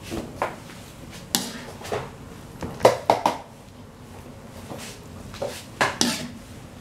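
A metal skimmer knocking and scraping against a metal wok and a plastic colander as boiled macaroni is scooped out and drained: a string of sharp clinks and clatters, with three in quick succession about three seconds in and two more close together near the end.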